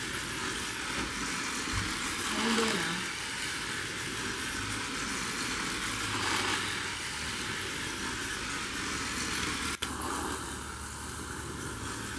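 Toy race cars running round a plastic racing track, a steady small-motor whir. A short child's vocal sound about two and a half seconds in, and a brief click near the end.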